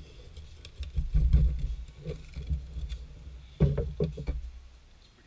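Knocks and scraping of a 12x12 porcelain tile being pulled up off wet thinset mortar to check the mortar coverage, over a low rumble. The loudest knocks come about a second in and again sharply about three and a half seconds in.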